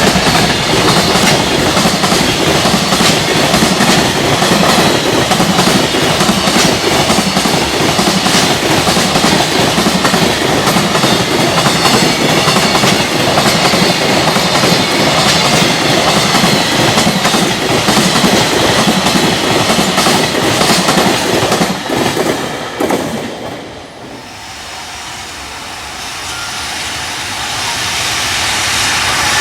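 Freight train passing close at speed: a loud, dense rush of wheels on rail with repeated clickety-clack from the rail joints. About 23 seconds in, the noise drops away sharply as the train clears, then a rumble builds again near the end.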